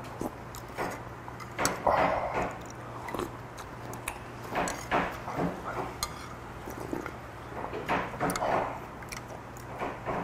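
A person slurping hot stew broth from a spoon and bowl in several short sips, with chewing and light clicks of a metal spoon and chopsticks against a ceramic bowl. A steady low hum runs underneath.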